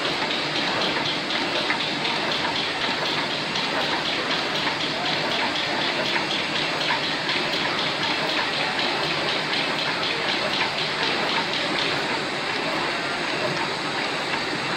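Automatic sticker-cutting machine running steadily, a dense mechanical hiss with a fast, even ticking of its feed and cut cycle, several ticks a second.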